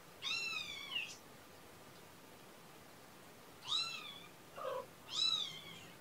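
A kitten meowing: three high, arching calls, each under a second long, with a short lower sound between the last two.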